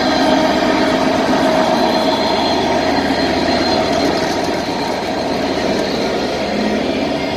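A train's engine running steadily at the platform, a loud even drone with a few held tones that eases off slightly in the second half.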